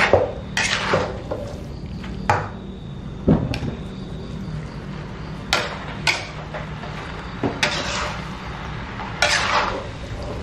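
Stainless-steel spatula scraping and clanking against a wok as noodles are stir-fried and tossed, in irregular strokes about every second.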